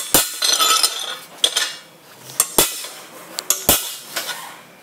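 Hammer striking a centre punch into steel plate: sharp metallic strikes about once a second, each ringing briefly, with lighter taps between. This is marking out the hole centres on the plate before the holes are punched.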